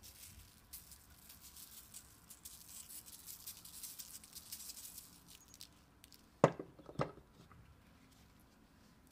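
Salt shaken from a shaker onto cubed potatoes and eggplant on a parchment-lined baking tray: a fine pattering of falling grains for about five seconds. This is followed by two sharp knocks about half a second apart.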